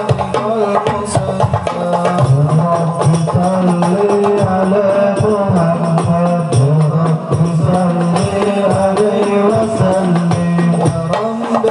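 A man singing a drawn-out, wavering melodic line of an Islamic devotional song (sholawat) into a microphone, over steady drum beats.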